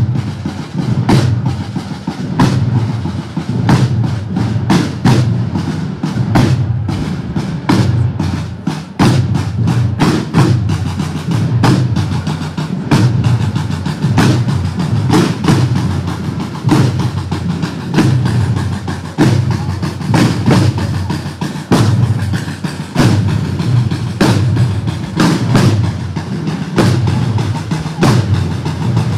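A group of processional side drums played together, beating a steady, repeating march rhythm of sharp stick strikes.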